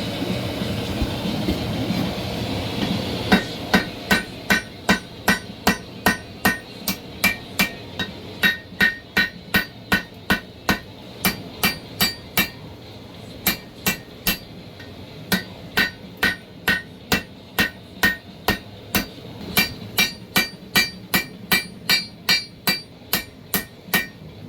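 Hand hammer striking a hot Damascus knife blade over the anvil's horn: ringing blows at about three a second, with two brief pauses midway. A steady rushing noise fills the first three seconds before the hammering starts.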